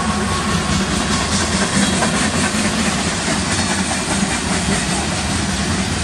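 Freight train rolling past at close range: a steady rumble of tank-car wheels on the rail, with repeated clicking of wheels over the rail joints. A thin whine fades out about half a second in.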